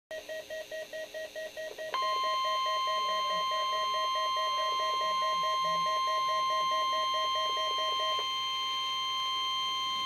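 NOAA weather radio receiving a Required Weekly Test: the receiver beeps rapidly, about six beeps a second, and about two seconds in the steady, single-pitch weather service warning alarm tone comes in loudly over the beeping. The beeping stops about eight seconds in while the alarm tone carries on.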